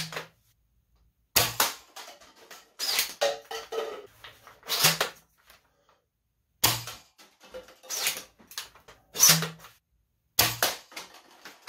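Bolt-action mega-dart Nerf blaster being breech-loaded and fired repeatedly: clusters of sharp plastic clacks from the bolt being worked and darts being loaded, with the shots coming as short clacks carrying a low thud, and plastic cups knocked down by the darts.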